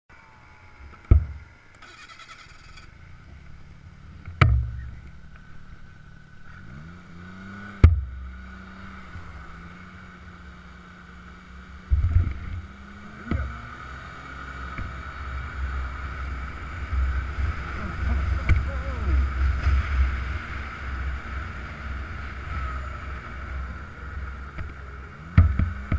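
Snowmobile running along a trail: a steady engine note that climbs in pitch about seven seconds in, with a heavy low rumble through the second half. Several sharp knocks come from bumps along the way.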